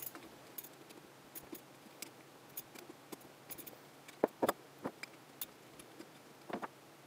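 Ratchet wrench clicking irregularly as it loosens the cover-plate bolts on a rotary vane vacuum pump, followed from about four seconds in by a few louder metallic clinks.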